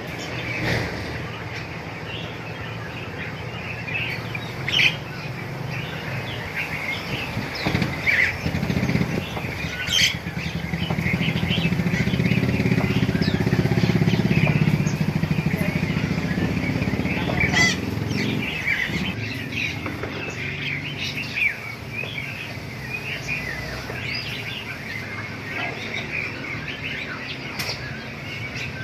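Many small caged birds chirping and twittering together. An engine rumbles past from about 9 to 18 seconds, the loudest sound, and a few sharp clicks stand out over the chirping.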